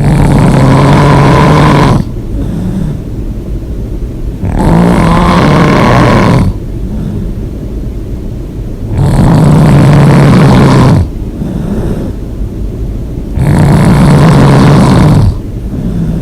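A person snoring loudly with the mouth open: four long snores of about two seconds each, coming roughly every four and a half seconds, with quieter stretches between them.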